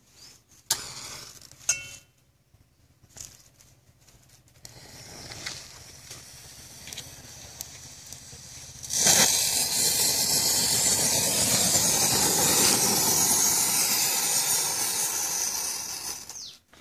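A match struck, then a firecracker fizzing faintly as its fuse burns. About nine seconds in it bursts into a loud, steady hiss of spraying sparks and smoke for about seven seconds, fading away near the end.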